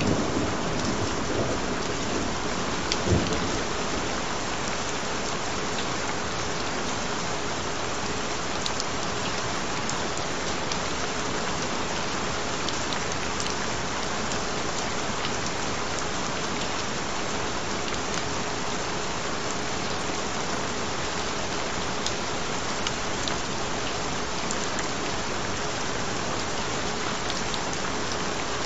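Steady rain falling, with a thunder rumble dying away at the start and a short low rumble of thunder about three seconds in. A faint steady tone runs underneath.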